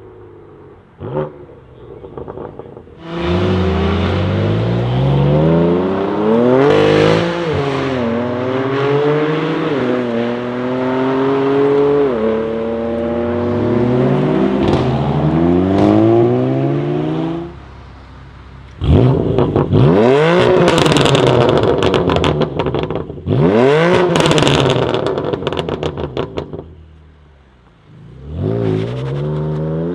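BMW M3 F80's twin-turbo straight-six through a full titanium iPE exhaust, accelerating hard for about fifteen seconds with the pitch climbing and dropping again and again as it runs up through the revs. After a short lull it revs hard several times with crackling from the exhaust, and near the end it picks up again.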